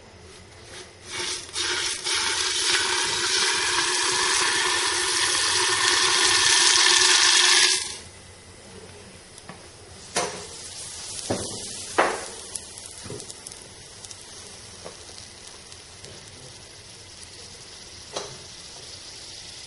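Liquid nitrogen poured into a foam dish over a superconductor disc, boiling hard on contact with a loud rushing hiss that cuts off abruptly about eight seconds in. After that comes the quieter, steady hiss of the nitrogen boiling off in the dish, with a few light clicks.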